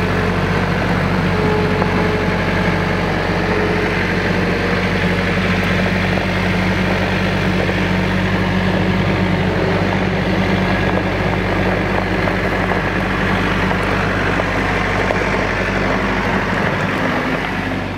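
Compact tractor's diesel engine running steadily at a constant speed as the tractor drives on gravel.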